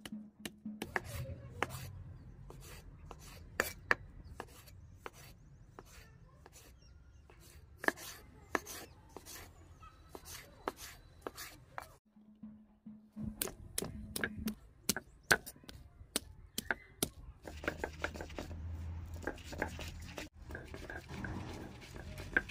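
Kitchen knife chopping tomatoes on a wooden cutting board: a run of sharp, uneven chops with a brief break about twelve seconds in. Over the last few seconds comes a denser scraping and crushing as potatoes are pounded on a stone slab.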